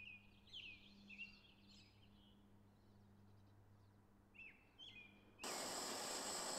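Faint bird chirps, several short gliding calls, over a steady low hum. About five seconds in, the loud, even hiss of a handheld gas torch flame starts suddenly.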